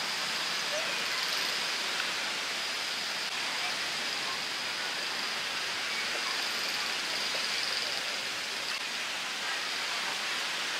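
Steady outdoor background hiss, even and unchanging, with a faint high-pitched whine running through it.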